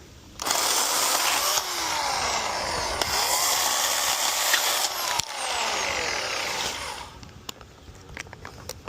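Chainsaw running at full throttle and cutting, its pitch falling several times as the chain bogs into the wood, for about six seconds before it is let off; scattered light clicks and crackles follow.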